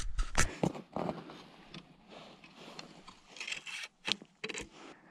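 Close scraping and rustling of jacket fabric, with several sharp knocks, as a hand handles the chest-mounted camera. The knocks are loudest in the first half-second.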